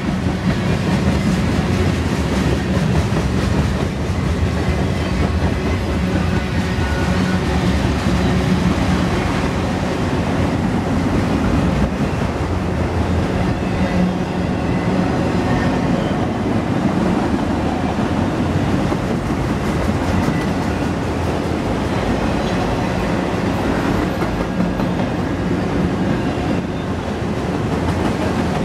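Freight train cars, covered hoppers and then autorack cars, rolling past close by: steady, loud rolling noise of steel wheels on the rails.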